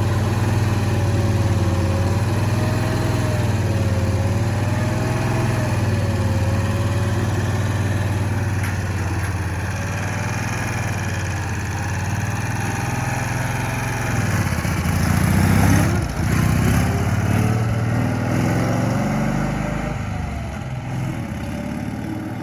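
Engine of a 1965 Cushman Truckster utility vehicle running as it is driven, its pitch wavering up and down with engine speed. It shifts briefly about two-thirds of the way through and grows a little fainter near the end.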